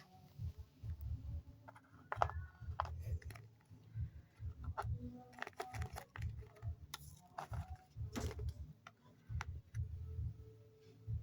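Paper blind bag and paper squishy being handled: irregular taps, clicks and light crinkles of paper and tape, with low thumps of hands moving near the microphone.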